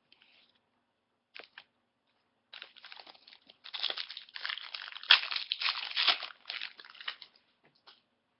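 Hockey card pack wrapper being torn open and crinkled, a dense crackling noise from about two and a half seconds in until near the end, after a couple of short clicks.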